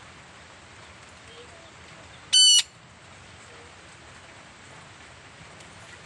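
A parrot gives one short, loud, high-pitched call about two and a half seconds in.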